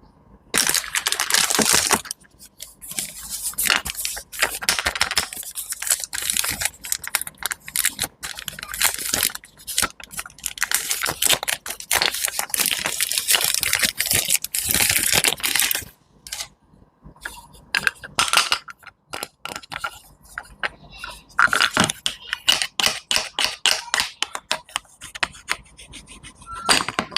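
Close-up crisp crunching and crackling of a knife cutting through fresh fruit and vegetables, in dense bursts of sharp clicks with short pauses, one longer pause about halfway through.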